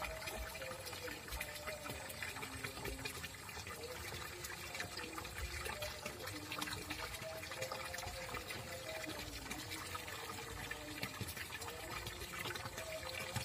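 A thin stream of water pouring from a pipe spout into a shallow pool, splashing steadily.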